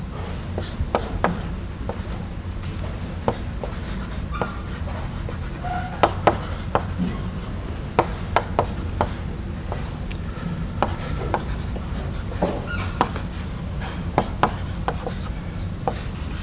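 Writing on a board, heard as irregular sharp taps and short scratches, over a steady low room hum.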